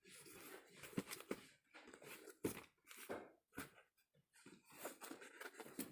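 Faint, irregular handling noise: scattered clicks and rustles.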